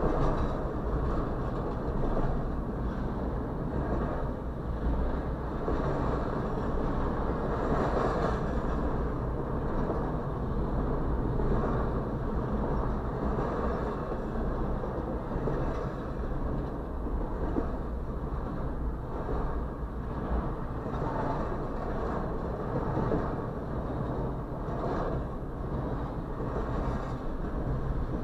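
Berkshire and Eastern freight train of double-stacked intermodal container cars rolling past: a steady rumble of steel wheels on the rails.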